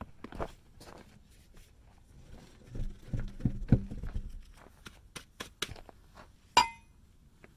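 Scattered thumps and clicks of someone moving about and handling things, then a single sharp metallic clank that rings briefly near the end.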